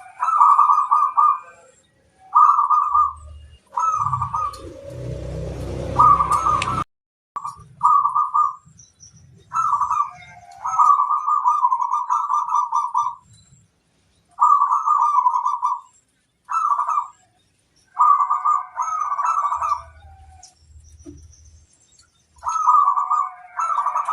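Zebra doves (perkutut) cooing in about a dozen trilled phrases, each a second or two long, with faint high chirping above them. About four to seven seconds in, a burst of rushing noise with a low rumble runs under the calls.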